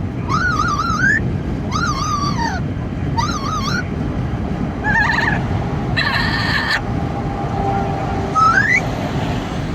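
Amazon parrot calling repeatedly in a moving car: a string of warbling whistled calls, a harsher squawk about six seconds in, and a rising whistle near the end, over a steady low rumble of car and wind noise.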